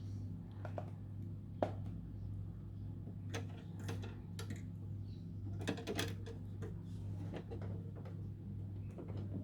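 Scattered small metallic clicks and taps as a screwdriver and a clip-on linkage are worked onto a Mercedes W114 door latch mechanism, irregular and a few per second at most, over a steady low hum.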